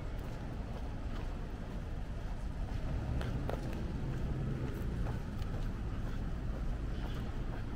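City street ambience: a steady hum of road traffic with cars passing.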